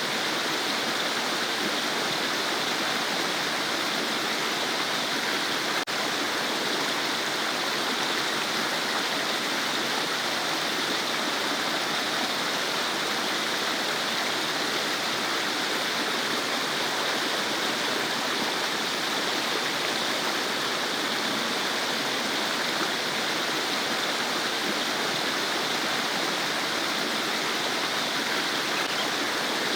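A small stream babbling, its water flowing and gurgling at a steady level, with one faint click about six seconds in.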